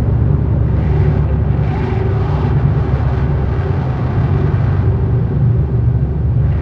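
Dark ambient drone noise: a dense, steady low rumbling drone with a faint wavering tone above it. A hissing noise layer swells and fades in slow waves about once a second.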